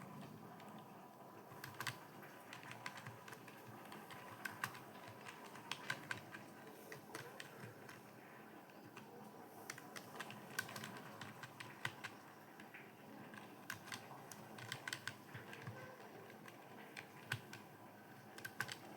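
Computer keyboard being typed on continuously, a fast, uneven run of light key clicks with no pauses.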